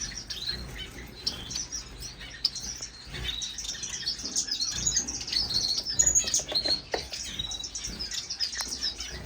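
A roomful of captive exotic finches chirping and calling over one another, a dense chatter of short, high-pitched chirps.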